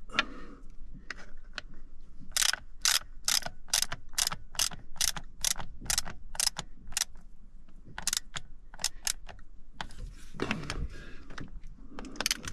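Ratchet wrench clicking in two runs, about three clicks a second, as it turns the retaining bolt on top of a diesel fuel filter. The bolt is being snugged only slightly, since overtightening would crush the filter.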